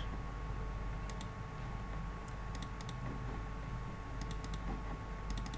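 Computer mouse clicking: light clicks in quick pairs and small clusters, double-clicks opening folders in a file browser, over a steady faint hum.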